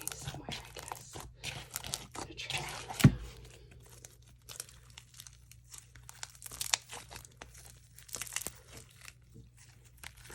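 Sticky slime being squished and stretched by hand, making irregular wet crackles and small pops, with one louder thump about three seconds in.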